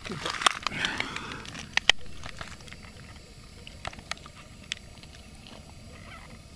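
Handling noise: a burst of rustling and scraping with several sharp clicks in the first two seconds, then a few scattered faint clicks.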